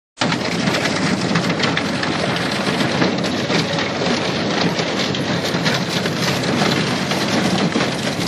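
Ice crunching and crackling continuously as a boat breaks through it, with a Pro-Drive mud motor running underneath; the sound starts abruptly right at the outset.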